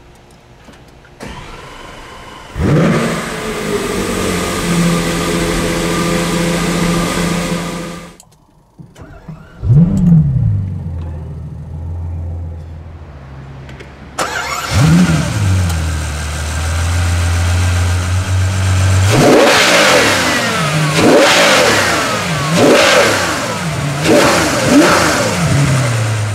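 Supercar engines starting one after another: a Lamborghini's engine fires with a sharp flare and settles into a steady high idle, and after a short cut another engine fires and settles. Near the end a Ferrari 812 Superfast's 6.5-litre V12 starts with a flare, idles, then is blipped through a series of quick revs.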